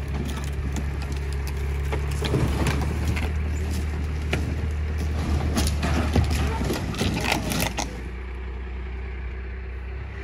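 Wooden roof and wall framing cracking, splintering and crashing as a building section is pulled down, over a steady engine hum from the pulling vehicle. The cracks and crashes come thick for about eight seconds, then stop as the engine settles lower.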